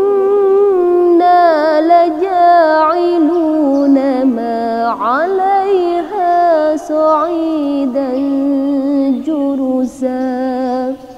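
A woman reciting the Qur'an in a melodic chant (tajwid), unaccompanied, holding long ornamented phrases with slides in pitch, including a quick upward sweep about halfway through.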